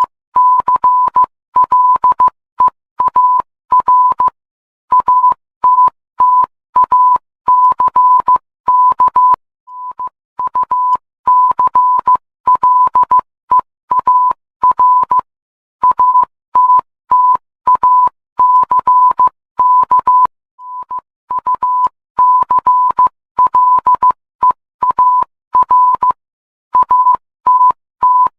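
Emergency alert alarm: a single high electronic tone beeping on and off in a fast, uneven pattern of short and longer beeps, broken by short pauses about every five seconds.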